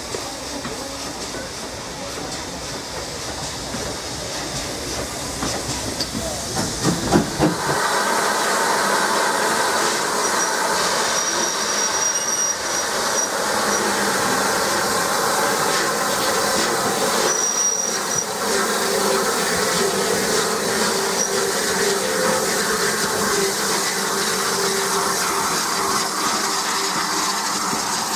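Steam locomotive working a train, a low rumble with a few louder beats. About seven seconds in it gives way to a steady hiss of steam escaping from a locomotive's cylinders, with passenger coaches rolling by.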